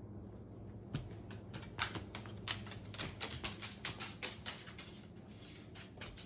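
A cockatoo's claws clicking and tapping on a hardwood floor as it walks and hops: quick, irregular clicks, several a second, thinning out after about four and a half seconds, over a low steady hum.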